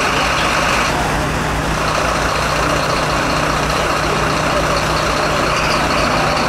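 A parked fire engine's diesel engine running steadily: a constant low hum under an even rushing noise.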